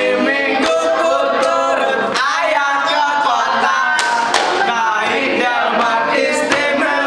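A group of teenage boys singing a song together, with scattered hand claps.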